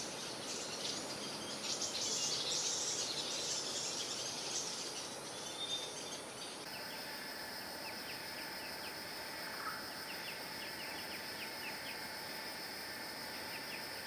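Forest ambience: small birds twittering in a cluster of high chirps for the first several seconds. After a cut about six and a half seconds in, a steady high insect drone carries on under a string of quick, thin chip notes.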